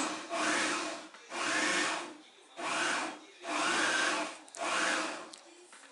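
Pencil drawing short lines on tracing paper: five scratchy strokes, about one a second.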